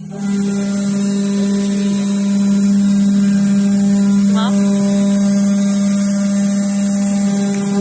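Spindle of an automatic-tool-change CNC machine running with a loud, steady hum, with a brief rising whine about four seconds in.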